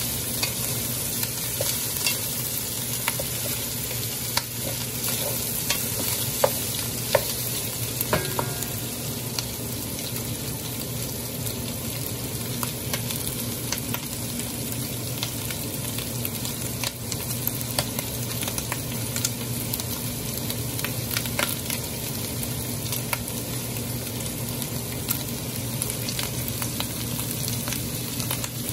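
Chopped pork and onions sizzling steadily as they fry in a metal pot, with a wooden spatula stirring and scraping now and then, most often in the first several seconds. A low steady hum runs beneath the sizzle.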